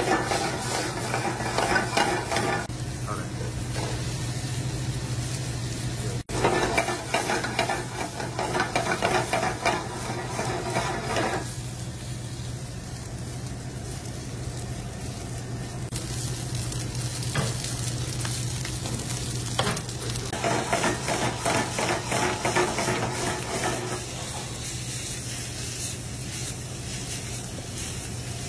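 Diced vegetables, bacon and rice sizzling and frying in a metal sauté pan over a gas burner as the pan is tossed and stirred, the sizzle swelling louder in several stretches. A steady low hum runs underneath.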